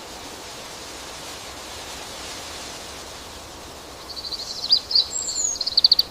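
Outdoor nature ambience: a steady hiss, with small birds chirping and trilling in quick high runs from about four seconds in.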